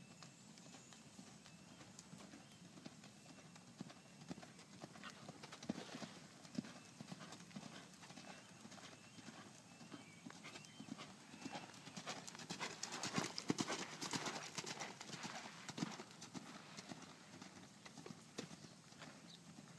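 Faint horses' hoofbeats on sand arena footing, growing busier and louder a little past the middle.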